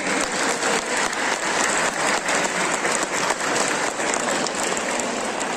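Audience applauding: many hands clapping together in a steady crackle that dies down near the end.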